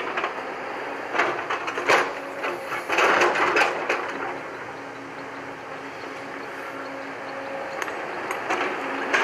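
JCB tracked excavator's diesel engine running steadily while the bucket scrapes and knocks against rock and soil, with a burst of loud knocks and scraping about one to four seconds in and a few sharper knocks near the end.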